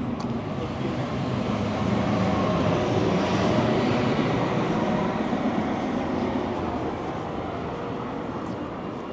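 A motor vehicle passing by: engine hum and tyre noise that swell to a peak about three to four seconds in, then slowly fade.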